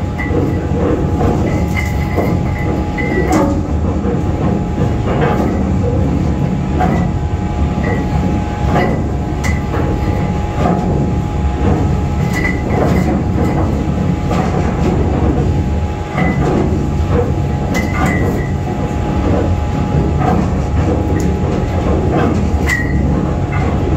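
Heavy anchor chain clanking link on link as it is heaved in and drops into a steel chain locker, with irregular sharp metallic clanks over a steady loud mechanical rumble.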